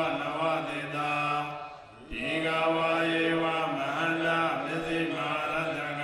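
Theravada Buddhist monks chanting Pali paritta verses in a low, steady monotone, with a short pause for breath about two seconds in.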